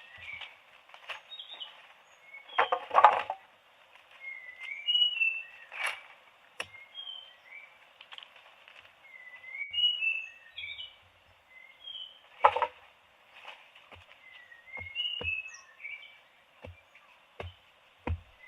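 Small birds chirping over and over in short, gliding calls, with a few knocks and bumps, the loudest about three seconds in and again past halfway.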